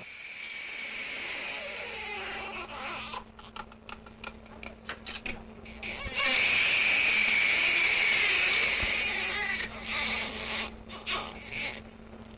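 Horror-film sound design: a harsh, noisy hiss that gets louder about six seconds in and eases off about three seconds later, with scattered crackles before it and a steady low hum underneath.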